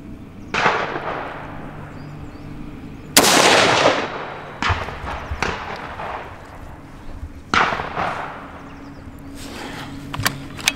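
Three shots from a Schmeisser SP15 straight-pull .223 rifle, each with a short ringing tail: about half a second in, about three seconds in (the loudest) and about seven and a half seconds in. Sharp metallic clicks come between the shots, and a quick cluster of sharp clicks and knocks comes near the end.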